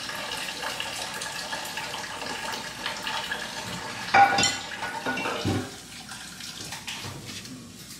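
Kitchen tap running into a sink while dishes are washed, with a loud clank about four seconds in and a softer knock a moment later; the water stops near six seconds.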